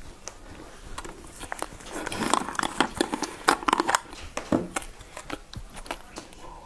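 Chewing, then a clear plastic drink bottle being handled at its lid: a run of sharp plastic clicks and crinkles from about two to four and a half seconds in.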